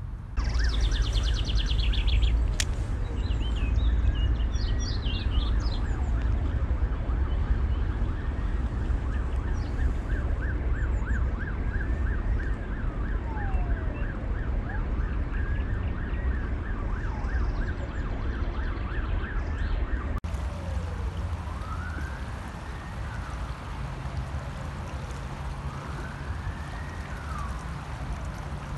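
A distant emergency-vehicle siren: a fast warbling yelp that changes, after about twenty seconds, to a slow rising-and-falling wail. Under it runs a steady low rumble, and birds chirp in the first few seconds.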